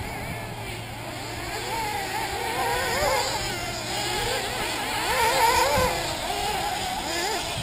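Several 1/8-scale nitro RC buggy engines revving as they race, overlapping high-pitched whines rising and falling with the throttle.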